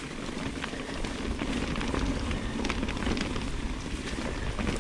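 Mountain bike rolling along a leaf-covered dirt trail: a steady crackle of tyres over leaves, dirt and small rocks, with scattered small clicks and rattles from the bike.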